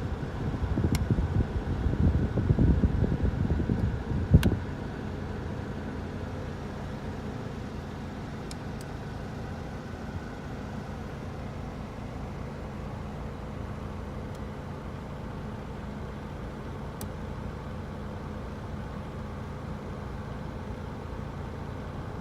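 Steady running noise of a Mitsubishi Delica D:5 heard from inside the cabin, with the air-conditioning blower going. The first four seconds carry louder uneven low rumbling that ends in a sharp click, then the steady hum carries on.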